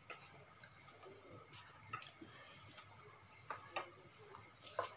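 Mostly quiet, with a few faint scattered clicks of metal forks against plates.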